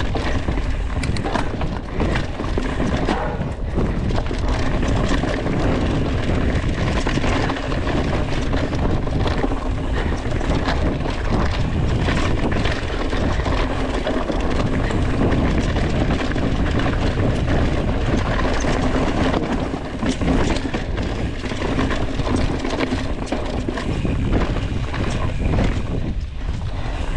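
Mountain bike riding over a rocky, leaf-covered trail, heard through a handlebar-mounted action camera: a steady rumble of the tyres and frame, with frequent knocks and rattles as the bike goes over rocks.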